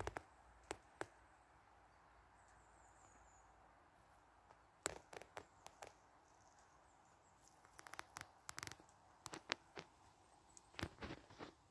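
Quiet outdoor background with scattered short clicks and taps, some single and some in quick clusters.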